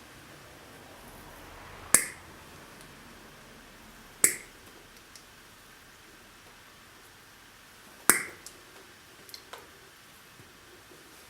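Three sharp clicks a few seconds apart, each trailed by one or two fainter ones, over a faint steady hiss.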